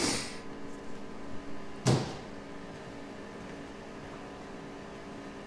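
Handling noise while working on wiring: a short brushing scrape, then a single sharp knock about two seconds in, over a steady low background hum.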